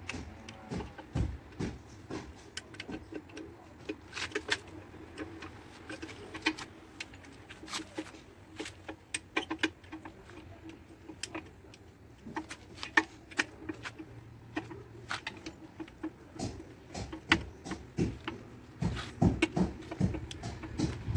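Socket ratchet clicking in irregular runs as bolts are run in on an old Scania engine, with the odd clink of metal on metal.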